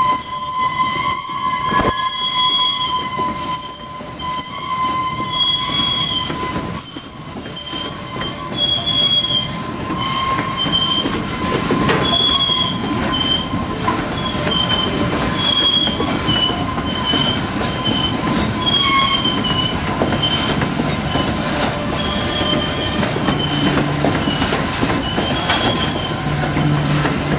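Slow freight train of steel-slab flatcars rolling past, its wheels squealing steadily in high, wavering tones that come and go over the rumble of the cars.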